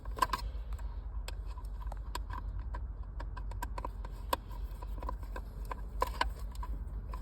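Scattered small clicks and taps of plastic parts being handled: the electric handbrake switch and its wiring clip being worked loose in the centre console. A low steady hum runs underneath.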